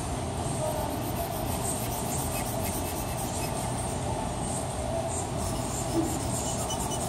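Steady hum and hiss of room noise, with faint, irregular scratching of charcoal being drawn and rubbed on drawing paper.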